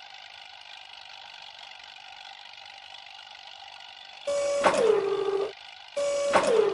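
Steady machine hum, then two identical loud tone blasts, each about a second long, whose pitch drops partway through and then holds.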